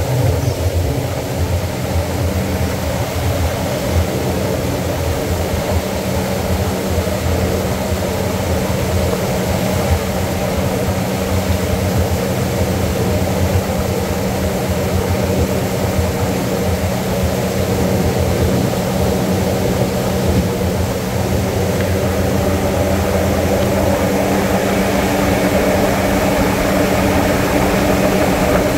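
Twin outboard motors on a speedboat running steadily at speed, a constant engine drone mixed with the rush of water and wind.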